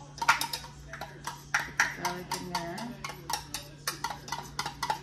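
Kitchenware clicking and knocking at a stovetop pot, several sharp, irregular knocks a second.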